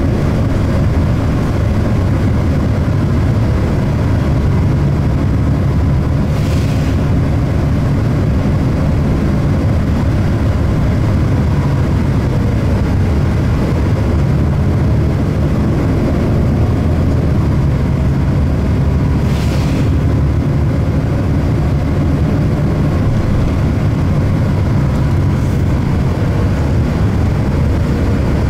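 Orion VII third-generation CNG transit bus heard from inside the cabin while under way: a steady low engine and road drone. Two short hisses cut in, about six and nineteen seconds in.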